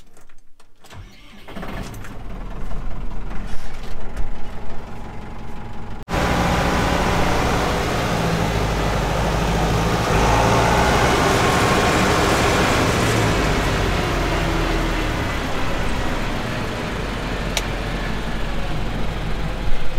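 Diesel tractor engine running. A mechanical noise builds over the first few seconds and breaks off suddenly about six seconds in, followed by louder, steady running.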